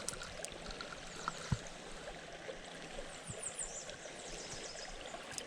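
Creek water running and trickling steadily, with a few faint clicks and a brief run of faint high chirps a little after three seconds in.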